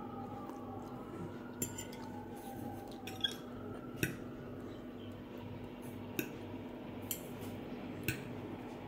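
Metal fork clinking and scraping on a plate of rice and vegetables: about six sharp clinks at irregular intervals over a steady low hum.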